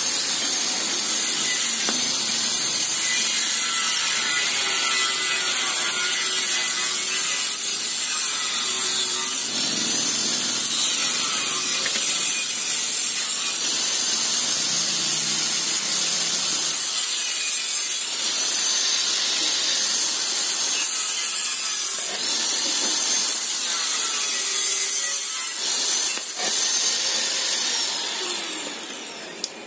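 A machine running steadily with a thin high whine that steps in pitch several times, then glides down near the end as the noise drops away.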